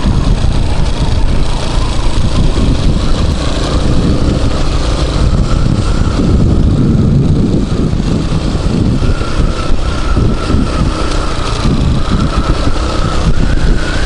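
Dirt bike engine running under way over a rough dirt track, with wind buffeting the microphone. A thin steady whine joins in about nine seconds in and holds.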